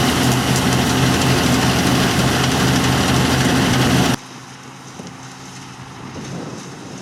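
Diesel engine of farm harvest machinery running steadily and loudly. About four seconds in the sound cuts off abruptly to a much quieter, even rushing noise with a faint engine hum under it.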